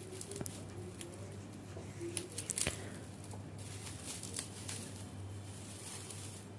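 Plastic wrapping being pulled off a boxed product: soft rustling and crinkling with scattered small clicks and taps, over a low steady hum.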